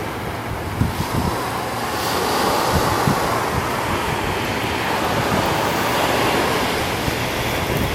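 Ocean surf washing onto a sandy beach, with wind buffeting the microphone in low gusts.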